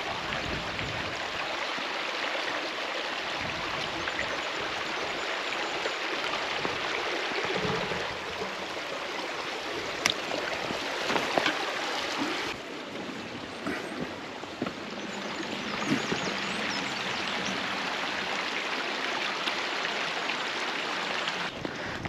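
Small forest stream running over stones and roots: a steady rush and babble of water. A few short knocks sound over it partway through.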